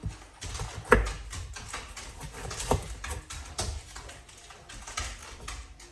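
Knife knocking on a cutting board in a few irregular strokes as celery is cut, the loudest about a second in.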